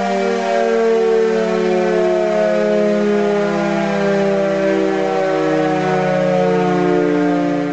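Dual-rotor electric motor siren sounding a loud two-note chord that slowly falls in pitch.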